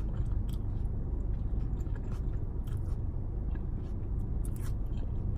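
Close-up chewing of a mouthful of pizza, with small scattered mouth clicks, over the steady low hum of a car's air conditioning.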